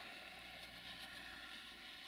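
Faint, steady running of an approaching 060-DA (LDE2100) diesel-electric locomotive's Sulzer engine, heard from a distance as it hauls a freight train.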